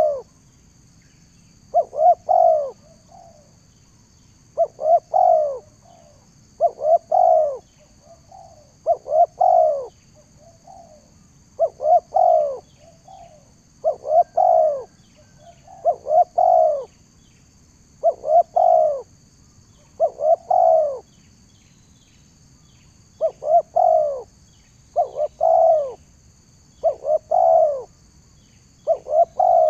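Dove cooing over and over: short arched notes in bursts of two or three, about every two seconds. Faint ticking chirps and a steady thin high whine sit underneath.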